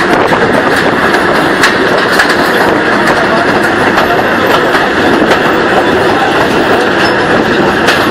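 Rolling noise of a 1920s passenger carriage running along the track, loud and steady, with sharp clicks every second or so as the wheels cross rail joints.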